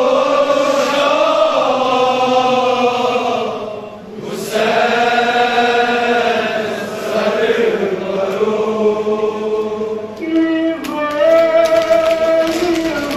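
A man chanting a Kashmiri noha, a Shia lament, into a microphone in long, held, gliding lines, with a breath pause about four seconds in.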